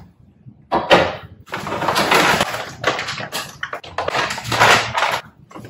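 Plastic flour bag crinkling and rustling in several irregular bursts as it is handled and opened.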